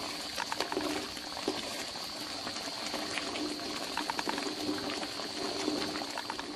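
Thick pineapple jam boiling in an aluminium pan, with many small irregular pops of bursting bubbles as it is stirred with a wooden spoon. The mixture has thickened near jam consistency and is starting to splutter.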